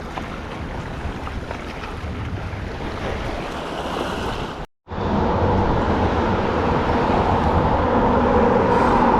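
Wind on the microphone with water washing by. After a sudden cut to silence a little before halfway, a louder steady motor hum runs under the wind.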